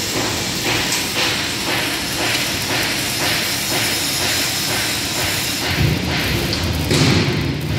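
Arc welding with a Fimer TM500 welding machine: a steady hiss with faint regular pulses. A low rumbling machine noise joins in about six seconds in.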